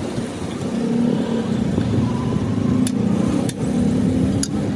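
A motor vehicle engine running steadily, with three short sharp clicks in the second half.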